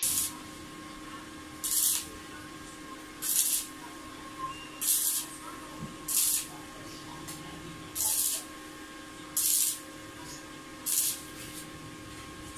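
Electric arc welder making short welds on a galvanized-steel cart frame: about eight brief bursts of crackling hiss, roughly one every one and a half seconds.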